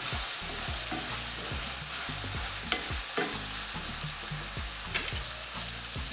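Seasoned food frying in a cooking pot, a steady sizzle, with a few sharp knocks against the pot partway through.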